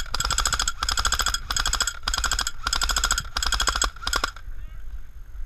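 Airsoft rifle firing rapid full-auto bursts, about seven or eight short strings of quick clicks with a whine, giving cover fire. The firing stops a little over four seconds in.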